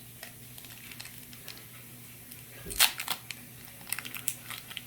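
Foil wrapper of a Pokémon card booster pack crinkling as it is worked open by hand, with scattered small crackles and one loud sharp crackle about three seconds in.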